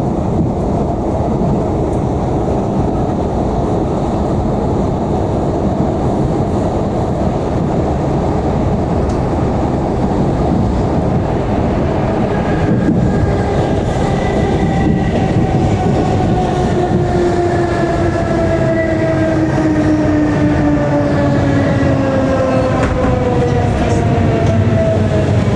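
ER2T electric multiple unit running on the rails with a steady rumble and occasional clicks. From about halfway in, a whine from the traction drive falls steadily in pitch as the train slows.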